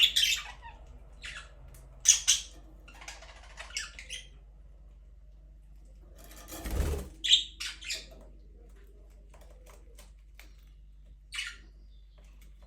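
Budgerigars chirping and squawking in short, scattered calls with pauses between them. A brief rustle with a low thump comes about seven seconds in.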